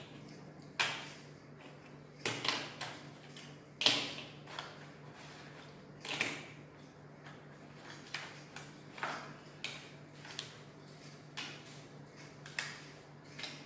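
Small plastic toy cars and figures being picked up and set down on a tabletop: irregular light clacks and knocks, the loudest about a second in and about four seconds in.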